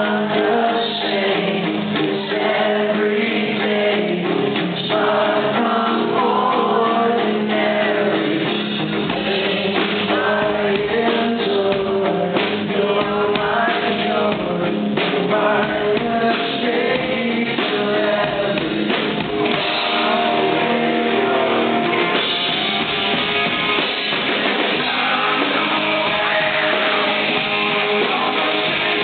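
Live rock song: a male lead vocal sings over electric guitars and a drum kit.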